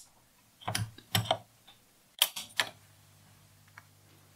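Piano-key push buttons on a Grundig 3160 tube radio clicking as they are pressed: several sharp clicks in the first three seconds. A faint steady low hum comes in about two and a half seconds in.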